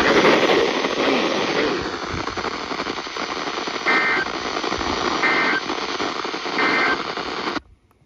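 NOAA weather radio receiving a static-laden alert broadcast, ending with three short warbling data bursts about a second apart: the EAS end-of-message code. The audio then cuts off sharply as the radio mutes.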